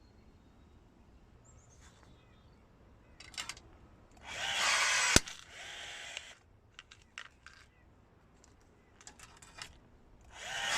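Milwaukee M12 cordless rivet gun's motor whirring as it pulls a rivet, ending in a sharp snap as the mandrel breaks about four to five seconds in, followed by a shorter, quieter whir. Small handling clicks come before and after, and the motor starts whirring again near the end.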